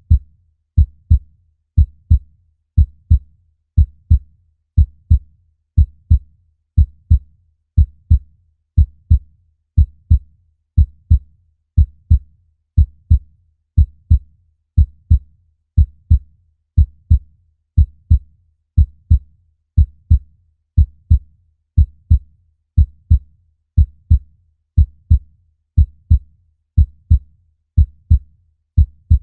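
Human heartbeat: a steady lub-dub of two low thumps in quick succession, repeating evenly about once a second.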